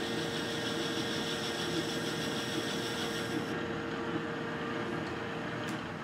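Metal lathe running steadily with a constant motor and gear hum while a carbide boring bar cuts inside the spinning ductile iron part. The cut adds a higher, hissing sound that stops about three and a half seconds in, and the lathe runs on.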